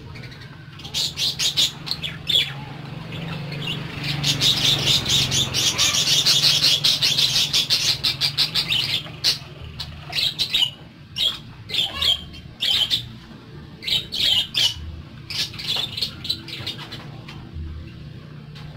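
Caged parakeets chirping and chattering in quick runs of short, high-pitched chirps, densest for several seconds in the middle, then scattered calls near the end.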